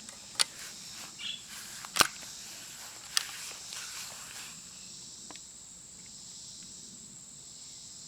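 Three sharp clicks, about half a second, two and three seconds in, with a few fainter ones, from a break-action single-shot 20 gauge shotgun being handled just before firing, over a steady high chorus of insects.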